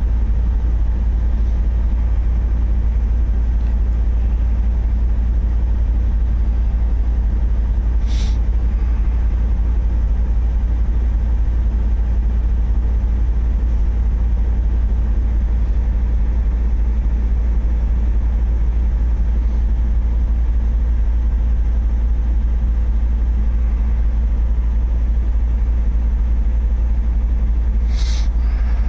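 Semi-truck's diesel engine running steadily, a deep drone heard from inside the cab. Twice, about eight seconds in and again near the end, a short sharp hiss of released air from the truck's air system cuts through.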